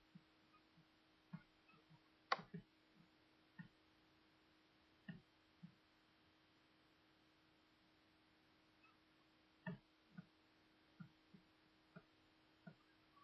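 Near silence: a faint steady hum with scattered soft taps and clicks at irregular intervals, the loudest a little over two seconds in.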